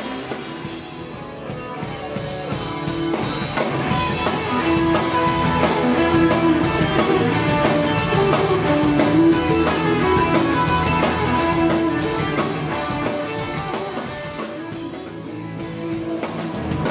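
Rock band playing live: electric guitars over bass and a drum kit keeping a steady beat. The music swells over the first few seconds and eases off near the end.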